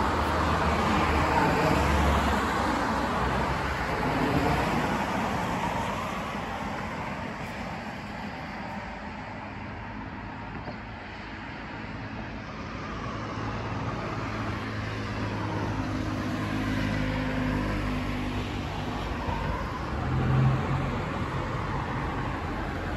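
Road traffic on a city street: cars passing, loudest in the first few seconds, easing off in the middle, then a vehicle's low engine hum through the second half, with a brief swell near the end.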